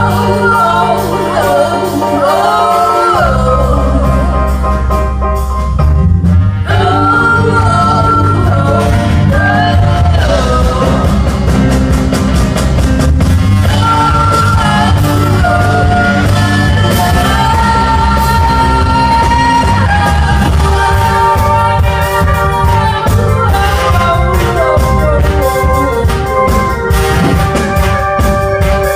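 A live band playing a rock song with a singer, with bass and drums, heard through the room.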